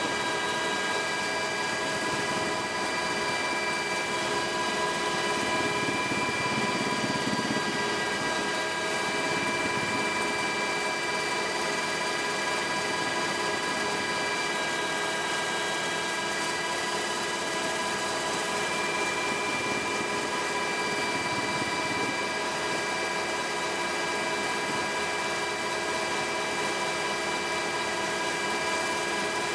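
Helicopter in steady flight, heard from inside the cabin: an even rushing noise with several steady whining tones on top.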